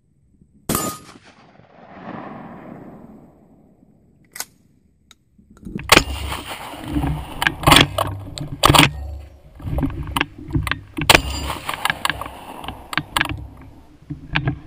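A shotgun blast about a second in, its echo dying away over the next few seconds. From about halfway on comes a run of sharp knocks and clanks over a low rumble, handling noise from the gun the camera is mounted on.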